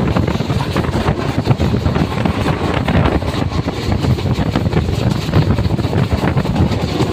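A passenger train running: steady rumble of the wheels on the rails with continuous rattling from the carriage, and wind buffeting the microphone at the open window.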